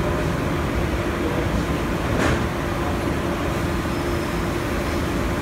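Steady drone of a commercial kitchen's fans and equipment, with a constant low hum. A single short tap sounds about two seconds in.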